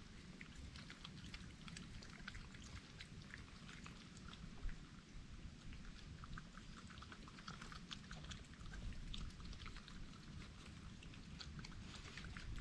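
Faint crunching and smacking of wild animals eating cookie crumbs: a steady scatter of small irregular clicks.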